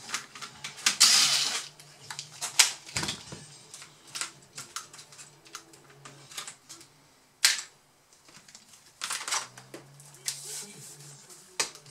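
Clicks, taps and knocks of a Dell Inspiron 15 3558 laptop's plastic palm-rest chassis and a cordless electric screwdriver being handled while screws and small boards are taken out, with a few short bursts of noise from the screwdriver and the parts.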